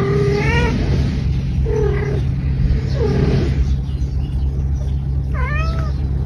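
A cat meowing four times, short pitched calls spaced a second or more apart, over a loud steady low rumble.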